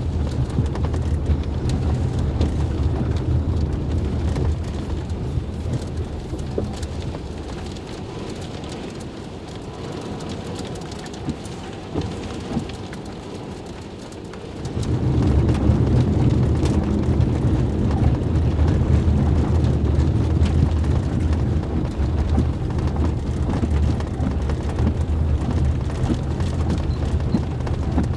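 Severe thunderstorm outflow wind blowing hard and buffeting, with rain. The wind eases for several seconds midway, then surges back suddenly about fifteen seconds in.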